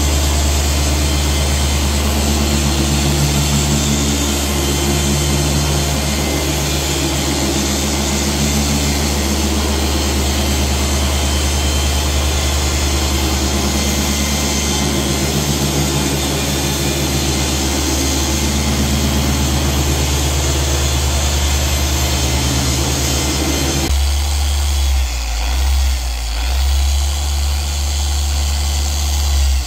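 Dual-action car polisher with a foam pad running steadily on black car paint, working polish to remove holograms. Its hum changes and wavers about 24 seconds in.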